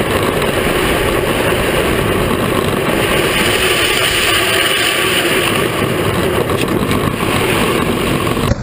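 Steady rush of wind buffeting the camera and wheels running over asphalt on a racing Power Wheels ride-on car at speed, with no clear motor note; it breaks off abruptly near the end.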